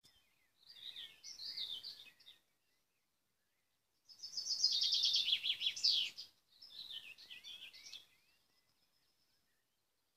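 A songbird singing three short phrases of quick, high warbled and trilled notes, with pauses between them. The middle phrase is the longest and loudest.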